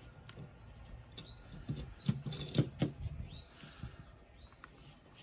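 Light clicks and knocks of steel tie rod parts being handled and fitted together, loudest in a cluster a couple of seconds in. A bird chirps over them repeatedly, each call a short rising note about a second apart.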